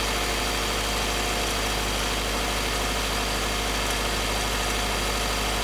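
2012 Subaru Forester's flat-four engine running steadily, hot, with a light rattle (cascabeleo) that appears only when the engine is warm around 1500 rpm; the mechanic suspects carbon deposits in the cylinders as a possible cause.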